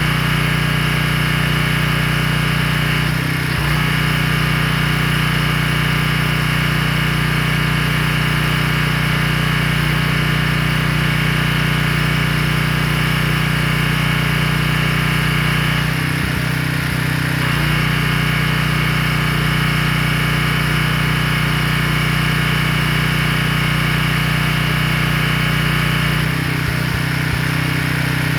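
Pressure washer's engine running steadily at a loud, even drone, with the hiss of the spray over it. Three times, about 3 seconds in, around the middle and a couple of seconds before the end, the sound briefly dips and shifts before settling back.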